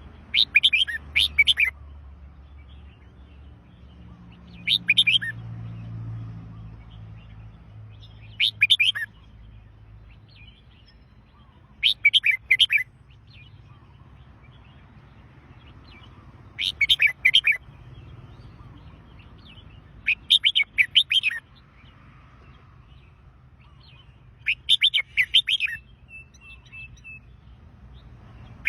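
Red-whiskered bulbul singing: short, quick warbled phrases about a second long, repeated roughly every four seconds, about seven times.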